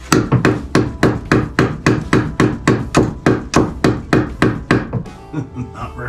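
Claw hammer driving nails into a very hard wooden 2x4 overhead to fix an electrical box for a light: a steady run of sharp blows, about three a second, that stops about five seconds in.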